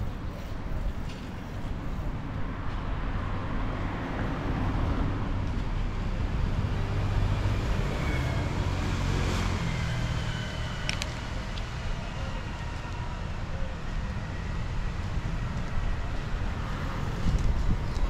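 Street traffic: a car passes by on the road beside the sidewalk, its noise swelling over several seconds and then fading, over a steady low rumble.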